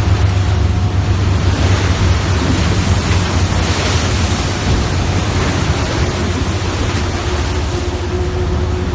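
Fishing boat underway: a steady low engine drone under loud wind and water rush, the rush swelling for a few seconds near the middle.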